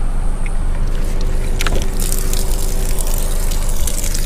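Ice vending machine running with a steady low hum. About two seconds in, a hissing, clattering rush starts as ice pours out.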